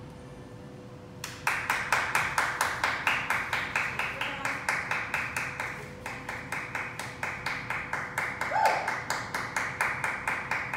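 A small audience clapping in a steady rhythm, about four claps a second, starting about a second in.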